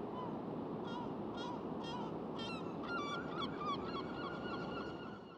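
Steady rush of surf and wind on the open beach, with gulls calling in a run of short, repeated cries from about a second in, growing busier past the middle. The sound fades out at the very end.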